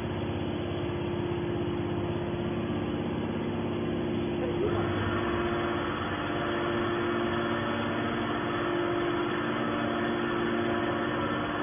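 Hydraulic can baler running: a steady machine hum with its motor tone held even. About halfway through, a higher, fuller whine joins in and carries on.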